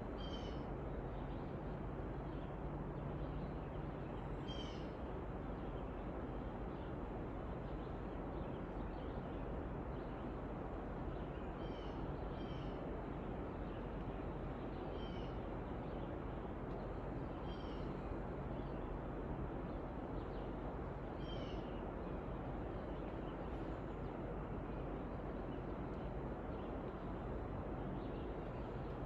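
A bird calling with short, high chirps, repeated every few seconds and sometimes in quick pairs, over a steady background rush.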